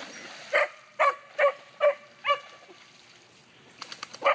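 Dog barking: five quick barks in a row, then a single bark near the end.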